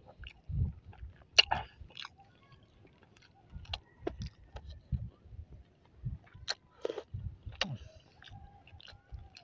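A person chewing a mouthful of crispy breaded, deep-fried balut: irregular wet smacks, clicks and soft crunches.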